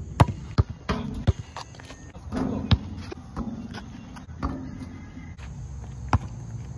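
Basketball bouncing on a concrete court: four sharp bounces in about the first second and a half, then single bounces about three seconds in and again near the end.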